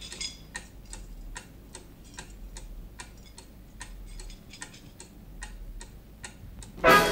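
A clock ticking steadily, about two and a half ticks a second. Just before the end, loud orchestral brass music cuts in.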